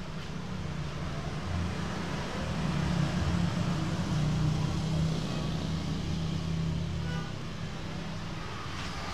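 Low rumble of road traffic, a vehicle engine growing louder through the middle and easing off near the end.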